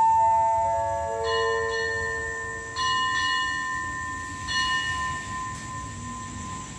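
Railway station chime ringing: a short run of tones stepping down in pitch, then three bell strikes about a second and a half apart, each left ringing and slowly fading.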